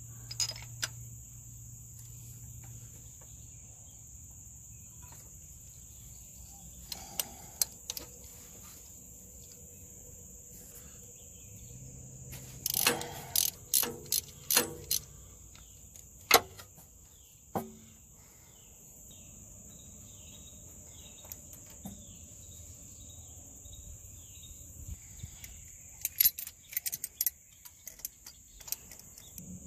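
Hand tools clinking on a broken exhaust manifold stud: a socket and ratchet, then locking pliers, giving scattered sharp metal clicks, bunched midway and again near the end. A steady high insect trill runs underneath.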